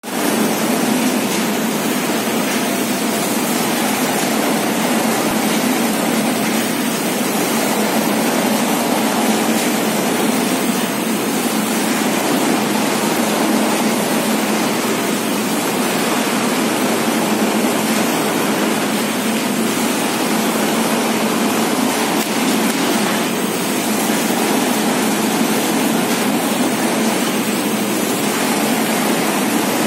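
Kraft-paper dunnage air bag hot-melt making machine running, a loud, steady mechanical noise of its motors and conveyor belts that never changes.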